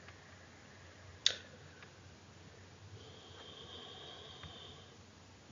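Faint room tone and microphone hiss, with one sharp click about a second in and a faint high whine for a couple of seconds in the second half.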